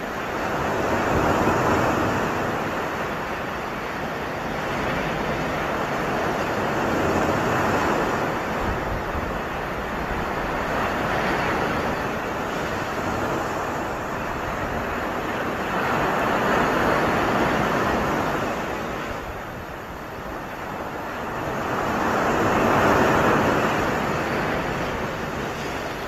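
Sea surf breaking on a sandy beach among rocks: a steady rush of waves that swells and eases every four to six seconds.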